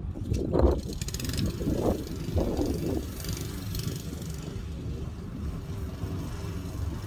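Lawn mower engine running steadily, with a few brief swells in the first three seconds.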